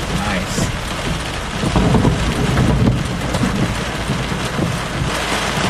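Heavy thunderstorm rain drumming steadily on a car, with a low rumble of thunder from a nearby lightning strike swelling about two seconds in.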